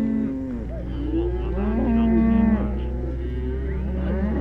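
Herd of cattle mooing, several animals calling over one another in long, drawn-out moos, some bending in pitch. A steady low rumble runs underneath.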